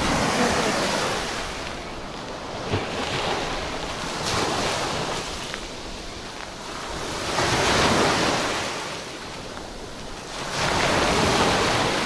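Sea waves breaking and washing up a sand-and-shell beach, the surf swelling and falling back every few seconds, with wind buffeting the microphone.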